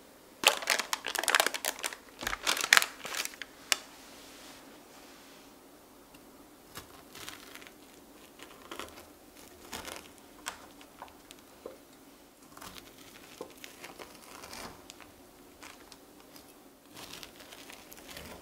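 Parchment paper crinkling loudly for about three seconds, then a large knife slicing down through a baked brownie slab with a crackly top crust: soft crackles and light crunches in short clusters, one cut after another.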